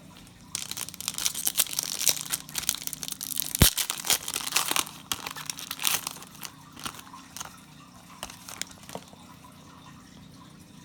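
Plastic trading-card pack wrapper being torn open and crinkled: a dense crackle for a few seconds with one sharp snap near the middle, then thinning to occasional crinkles.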